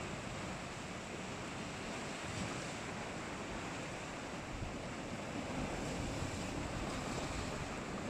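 Sea surf washing and breaking against a rocky shore in a steady wash, with wind buffeting the microphone in a low rumble.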